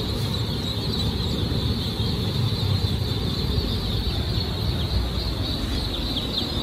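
A crowd of newly hatched ducklings and muscovy ducklings peeping all at once, a dense, continuous high chorus, over a steady low rumble.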